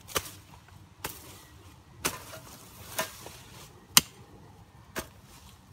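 Pickaxe chopping into weedy ground, six sharp strikes evenly spaced about a second apart, breaking up the soil for digging.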